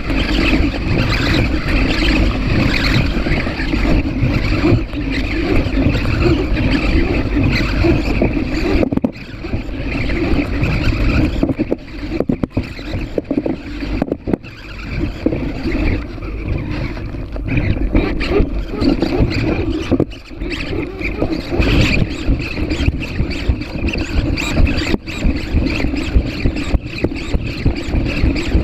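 PhantomX hexapod robot's servos running as it walks: dense, rough mechanical noise with a low rumble, broken by short clicks and dropping away briefly a few times.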